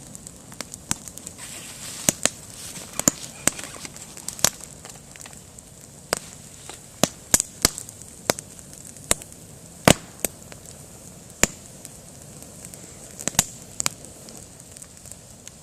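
Campfire crackling: burning wood giving off irregular sharp snaps and pops, some louder than others, over a steady low hiss.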